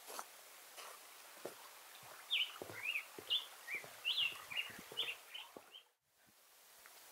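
Walking footsteps on a trail, irregular soft knocks, with a wild bird singing a string of quick, high chirps from about two seconds in. The sound drops out abruptly for a moment just before six seconds.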